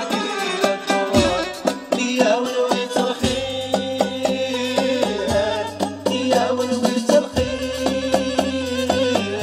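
Moroccan Jbala folk music played live by a band. A violin is held upright on the knee, keyboards play a low synth bass, and a hand drum and drum kit keep a steady beat under a wavering melody line.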